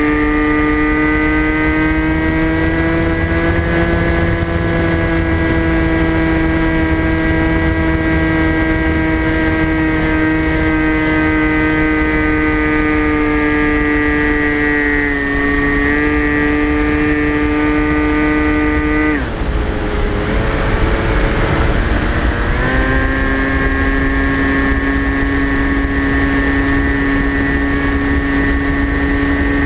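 Electric motor and propeller of a TBS Caipirinha FPV flying wing, heard from the onboard camera: a steady buzzing whine at near-constant throttle, over a low rush of wind. Briefly dips about halfway through; a few seconds later the power drops and the pitch sinks, then climbs back to a steady whine about three seconds later.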